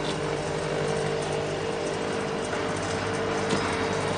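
Electric motor of a jute cutting machine's blade-sharpening grinder running steadily after start-up, a constant hum with a few steady tones. The grinding wheel is spinning but not yet fed onto the blade.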